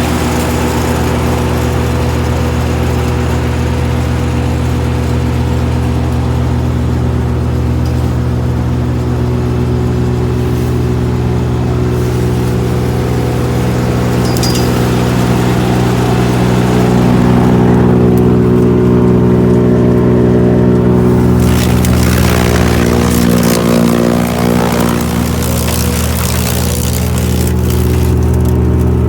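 GreenMech Arborist 150 wood chipper's engine running steadily, with spells of rougher, louder noise over it, the loudest a little past the middle.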